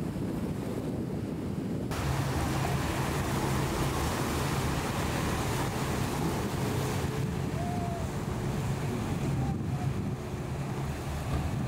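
Wind buffeting the microphone over water noise, then from about two seconds in a large motor yacht passing close: a steady low engine hum under the loud rushing hiss of its bow wave and wake.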